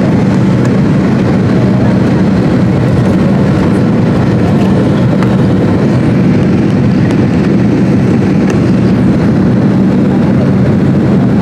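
Cabin noise of a McDonnell Douglas MD-88 in its climb after takeoff, heard from a rear window seat near its tail-mounted Pratt & Whitney JT8D engines. It is a loud, steady drone with a constant low hum under the rush of air.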